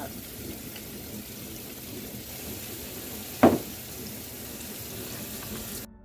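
Kitchen tap running steadily into a plastic colander of cut strawberries in a stainless steel sink. A single loud knock comes about three and a half seconds in, and the water sound cuts off suddenly just before the end.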